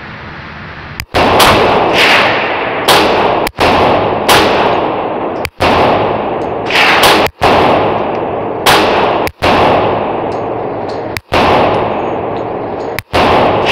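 Original 1918 Colt 1911 pistol firing .45 ACP rounds, a steady string of shots roughly one a second starting about a second in, each shot ringing off the concrete of an indoor range.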